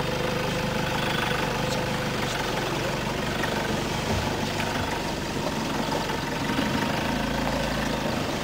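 Safari game-drive vehicle's engine idling steadily.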